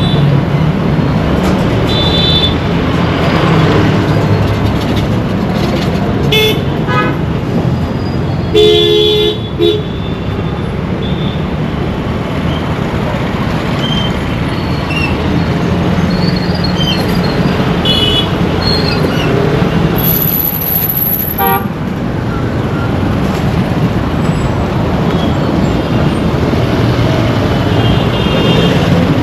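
Busy Indian road traffic: a steady mix of engines and tyres, with frequent short horn toots from different vehicles. The loudest honk comes about nine seconds in.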